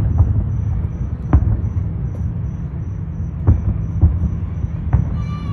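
Fireworks bursting: a handful of sharp booms, about a second apart, over a continuous low rumble.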